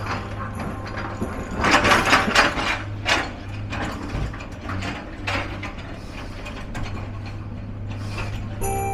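Heavy diesel machinery running steadily at a work site, with irregular clanks and rattles, loudest about two to three seconds in, as an excavator loads broken stone into a tipper truck.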